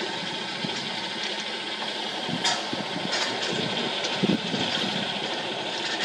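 Vehicle engine idling steadily, with a few short knocks standing out, the loudest about two and a half seconds in and just after four seconds in.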